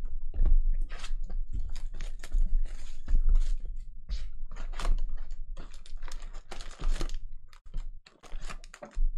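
Sports card boxes and packs being unwrapped and handled: a dense, irregular crinkling and clicking of plastic wrap and foil packs, with low knocks of cardboard and packs set down on the table.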